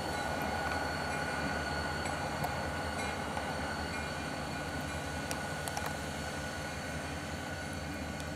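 EMD GP40 diesel-electric locomotives, with turbocharged V16 EMD 645 engines, running steadily: a constant low engine sound with a steady high whine over it and a few faint clicks.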